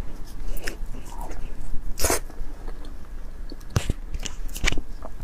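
Close-miked eating of soft durian flesh: wet mouth and lip smacks with a few sharp clicks, the loudest about two seconds in and another just before four seconds.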